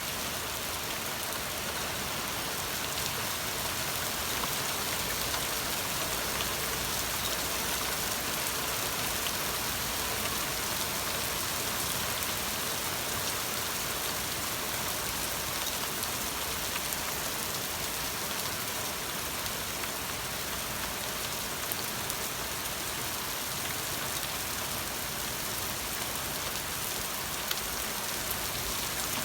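Steady rain falling and pattering on surfaces, a constant hiss with scattered individual drop ticks.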